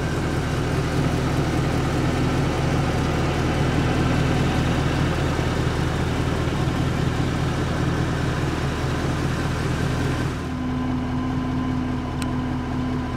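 Mercedes-AMG 6.2-litre M156 V8 of a 2014 C63 AMG Coupe Edition 507 idling steadily, heard at its quad exhaust tips. The tone shifts slightly about ten seconds in.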